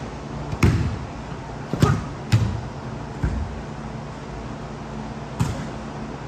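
A ball being struck and bouncing in an indoor sports hall: about six sharp thuds with a short echo after each, four of them close together in the first two and a half seconds and a lone one near the end, over a steady low hum.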